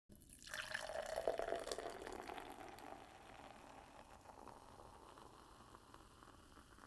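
Carbonated soda pop fizzing as it is poured, a crackling hiss of bursting bubbles that is loudest in the first two seconds and then slowly dies down.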